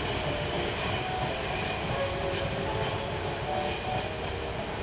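Diesel railcars pulling away under power: a steady engine rumble with wheels running over the rail joints and points as the train crosses the station throat.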